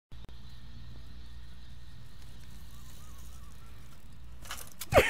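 Bicycle crash: a steady low outdoor rumble, then a few sharp clicks about four and a half seconds in. Near the end a loud thud as the bike and rider hit the sand after a jump off a bank, with a cry just starting.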